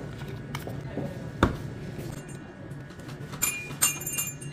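A plastic coffee bottle's screw cap is twisted open, with one sharp crack about one and a half seconds in. A few ringing clinks follow near the end.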